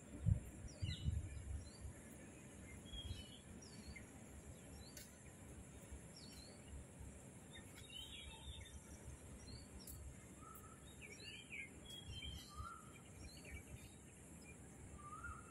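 Outdoor ambience with birds giving short, scattered chirps and calls throughout, faint against a steady background hiss. A few low rumbles on the microphone in the first two seconds.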